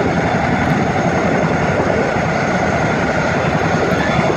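Boeing CH-47 Chinook tandem-rotor military helicopters running on the ground, a loud, steady mix of turbine engine and rotor noise.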